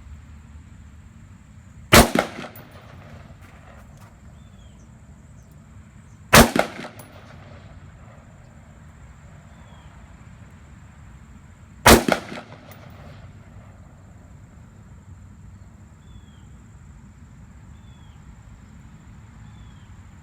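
Three single shots from a Rock River Arms AR-15 A2 rifle in 5.56 mm, about two, six and twelve seconds in, each a sharp crack with a short echo trailing after it.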